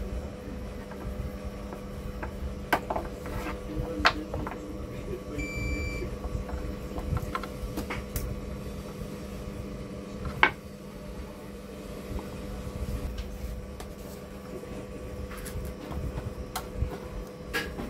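Light clicks and taps of wires and small hand tools being handled on a wooden workbench, over a steady electrical hum. One short, high beep sounds about five and a half seconds in.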